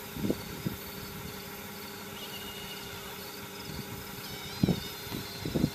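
Steady hum of a 1/12-scale RC hydraulic excavator's electric hydraulic pump running, with a few light clicks, then a burst of clattering near the end as the machine starts to move on its tracks.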